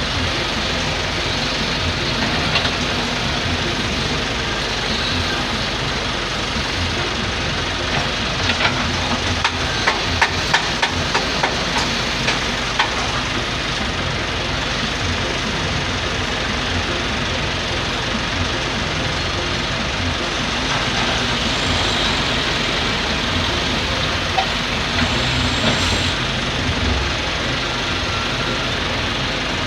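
Diesel engines of an excavator and a dump truck running steadily under load, with a run of sharp metallic clanks between about 8 and 13 seconds in.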